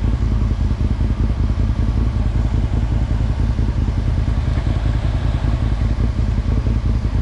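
Can-Am ATV engine running steadily while riding, with a dense low rumble.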